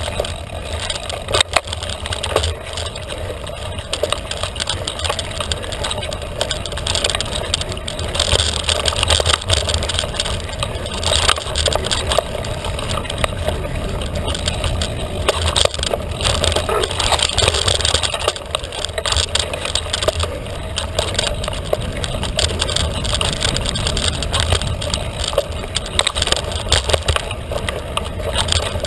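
Felt carbon 29er mountain bike being ridden hard on a dirt trail: continuous tyre and trail noise with a low rumble, and frequent small knocks and rattles from the bike over rough ground.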